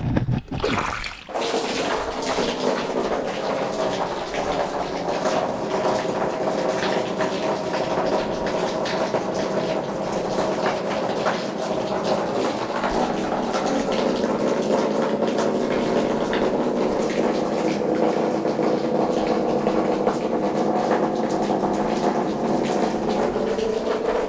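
Mains tap water jetting from a garden hose fitting and water meter onto the bare liner floor of an empty pond, a steady splashing stream as the pond starts to fill. It settles in about a second in, after a few short knocks.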